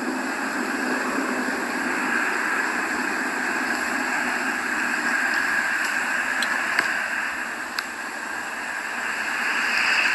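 Steady rushing noise with no clear pitch, with a few faint clicks and a slight swell near the end.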